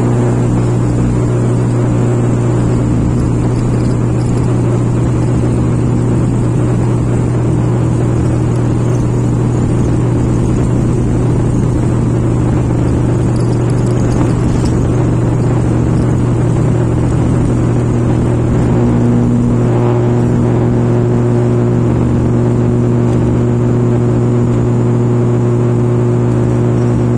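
ATR 72 turboprop engines and propellers at takeoff power, heard from inside the passenger cabin. They make a loud, steady drone with a strong low hum, through the takeoff roll and climb-out.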